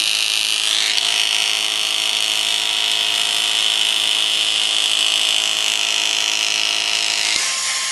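ShopTester200 inkjet cartridge tester running its print test: a steady mechanical whir with a strong high hiss, stopping about seven seconds in.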